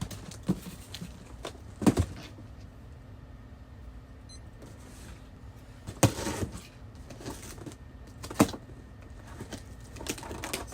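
Cardboard boxes and packaging being handled and opened: a few sharp knocks and thuds spread through, with faint scraping and rustling between them, over a steady low hum.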